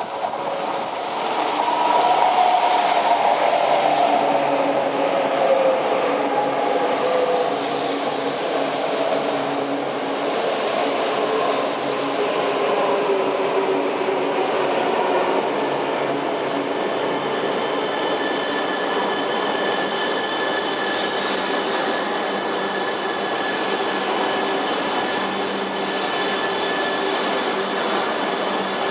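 JR East E4 series Max double-deck Shinkansen with a coupled E3 series Tsubasa train running into a station platform: steady rolling noise and motor whine whose pitch falls over the first several seconds as the train slows. The second half carries a steady high whine as the cars roll past.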